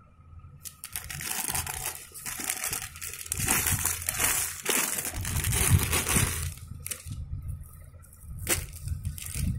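Packaging being handled and crinkled as a parcel is unwrapped: a long stretch of rustling and crumpling that stops after about six and a half seconds, followed by a couple of short sharp crinkles near the end.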